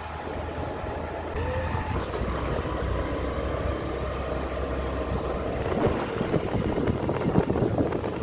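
A vehicle's engine running steadily while driving along a road. Gusts of wind buffet the microphone in the second half.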